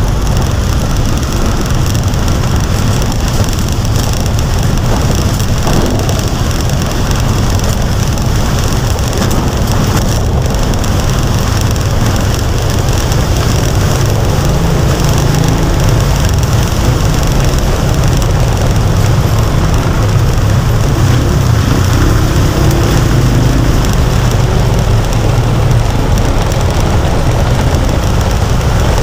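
Steady rumble of a vehicle driving through heavy rain, with the hiss of rain and water on the road over it.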